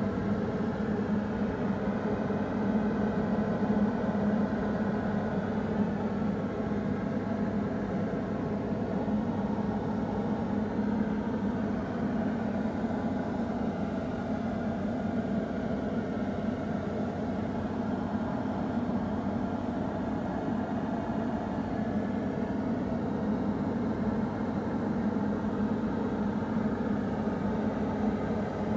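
Diamond DA40 light aircraft's engine and propeller droning steadily in flight, heard from inside the cockpit.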